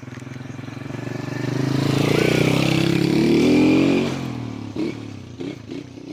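A motor vehicle engine passing close by: it grows louder over about three seconds, its pitch drops as it goes past, and it fades away, with a few short knocks as it fades.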